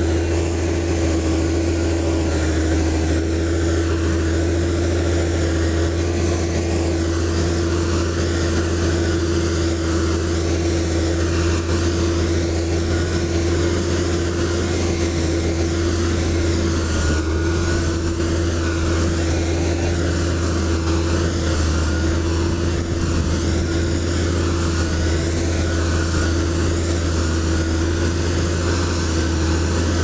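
Motor grader's diesel engine running steadily at an even speed: a low drone with a constant higher hum above it.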